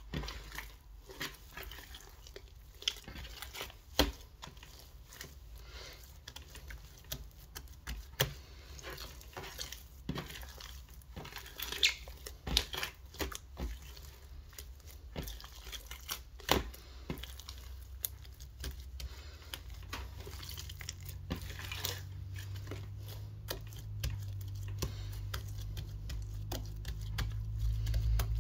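Hands kneading, stretching and pressing glossy clear slime mixed with small beads, giving many irregular sticky clicks and crackling pops. A low rumble builds in the last several seconds as the slime is pressed flat.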